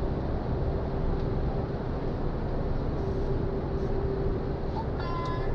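Steady in-cab running noise of a MAN heavy truck pulling a trailer at highway speed: low diesel engine and road rumble with a steady hum.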